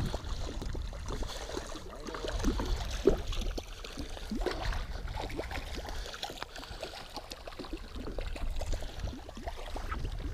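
Small waves lapping and gurgling against the side of a boat, with irregular little splashes, under a low wind rumble. One sharper slap stands out about three seconds in.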